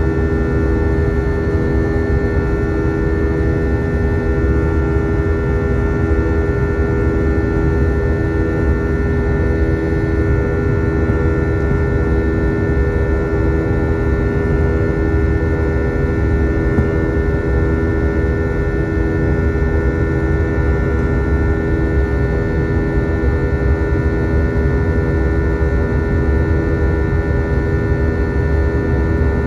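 Steady cabin drone of an Airbus A320-232 with IAE V2500 engines, heard from a forward window seat: a low rumble with several steady humming tones over it.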